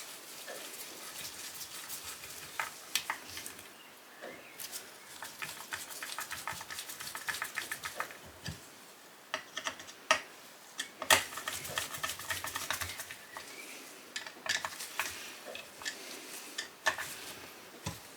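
Light clicks, taps and metallic clinks of hands and small tools working on scooter engine parts, with a quick run of rapid clicks midway.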